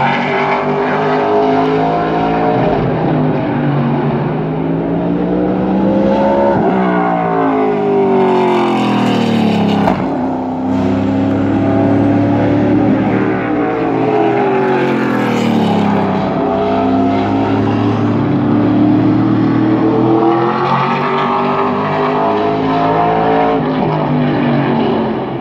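SRX stock car's V8 engine at full race pace lapping a short oval, the engine note climbing on the straights and dropping as the car lifts for the turns, rising and falling in long sweeps several times as it goes around.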